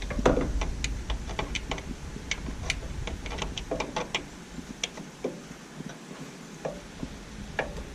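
Irregular light metallic clicks, two or three a second and sparser in the second half, from an Allen wrench tool being worked back and forth on an engine's oil drain plug, loosening it slowly.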